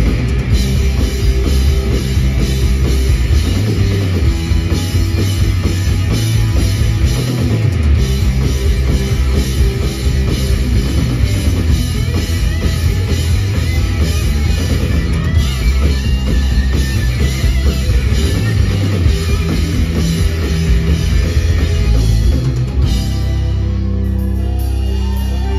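Live rock band playing loud with distorted electric guitars, bass guitar and a drum kit, with no singing. About three seconds before the end the drumming stops and a chord is left ringing.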